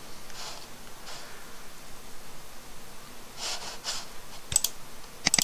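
Two soft breaths into a close microphone, then a few sharp computer mouse clicks near the end.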